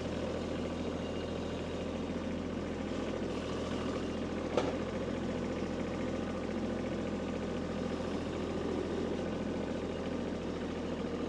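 Kubota B2301 compact tractor's three-cylinder diesel engine running steadily, with a single sharp knock about four and a half seconds in.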